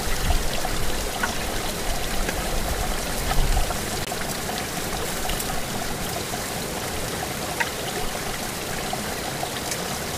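Steady rush of flowing water from the river and hot spring, with a few faint clicks. A low rumble under it drops away about four seconds in.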